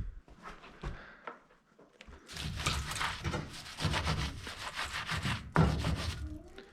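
Hand scrubbing of a milk pipeline with hot soapy water: a rough rubbing in rapid strokes, starting about two seconds in, with a short louder stretch near the end. A few brief squeaks rise in pitch.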